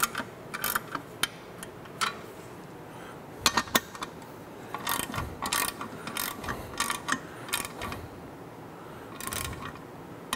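Ratcheting torque wrench tightening small nuts to about 18 to 20 inch-pounds, its pawl clicking in short bursts of quick strokes several times over, with pauses between.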